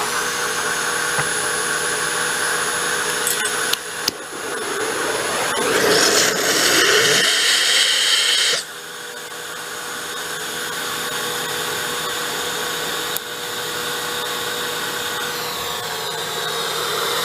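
A wood gasifier's electric blower runs steadily with a motor whine. Just before 4 s there are two sharp clicks, then a louder hissing rush lasts about four seconds and cuts off suddenly: a torch lighting the charcoal through the ignition port.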